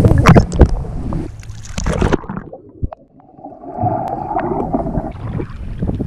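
Water splashing and sloshing against a waterproof action camera's microphone, with sharp knocks. Just over two seconds in, the sound suddenly turns muffled as the camera goes under, followed by gurgling bubbles.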